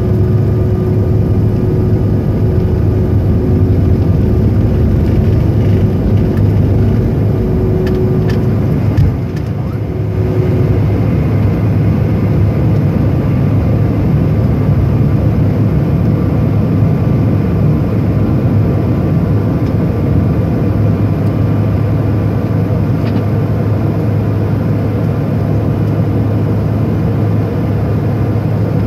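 Cabin noise of a jet airliner at takeoff power, a steady engine drone heard through the fuselage. About nine seconds in the runway rumble and a steady hum stop as the wheels leave the ground, and the engine drone carries on evenly through the climb.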